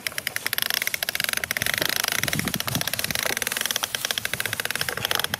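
Battery-powered toy dump truck driving over dry grass and stubble, its small electric motor and plastic gears whirring with a rapid, even clicking.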